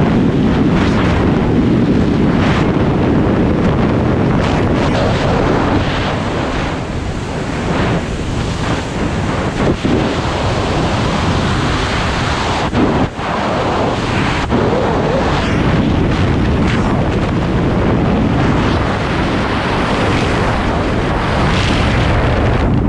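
Loud, steady rush of wind over the microphone during wingsuit flight: the airflow buffeting the jumper's camera at flying speed, with a couple of brief dips in level.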